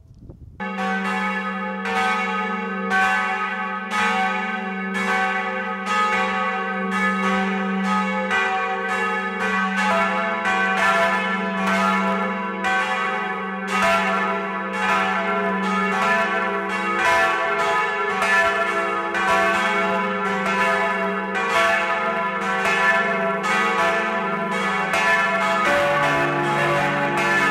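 Swinging church bells of a four-bell peal cast by Hamm of Staad, the largest tuned to cis', ringing together with strikes overlapping continuously. The ringing starts abruptly about half a second in, and a deeper note joins near the end.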